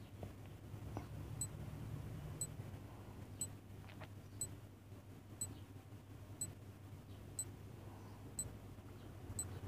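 Countdown timer sound effect ticking faintly once a second, about nine thin, high clock-like ticks, over a low steady hum.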